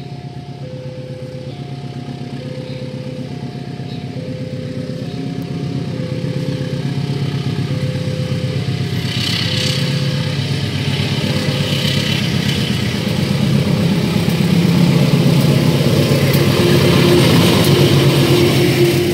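Diesel-electric locomotive hauling a passenger train away from the station, its engine growing steadily louder as it approaches and passes close near the end, with the rumble of the wheels on the rails. Under it, a two-note warning alarm alternates high and low, each note about a second long, and stops about two-thirds of the way in.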